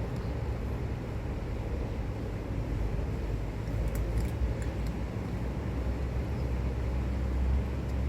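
Steady low rumble of motor traffic, with a few faint clicks about four seconds in.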